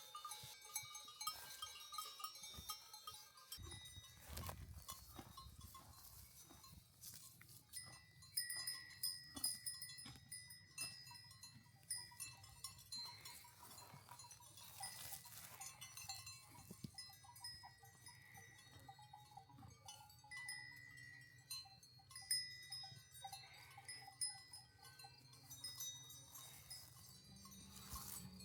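Faint, irregular tinkling of livestock bells, with a few soft clicks.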